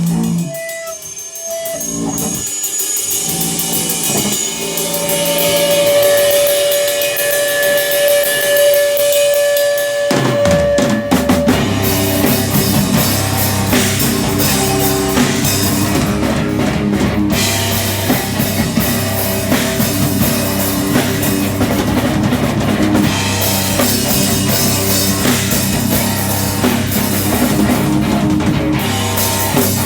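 Live rock band starting a song: a sparse opening with cymbals and a held guitar note, then the full band with drums, bass and guitar comes in about ten seconds in.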